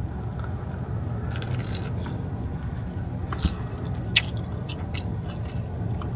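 A person biting and chewing crunchy food close to the microphone, with scattered short crunches over a steady low hum.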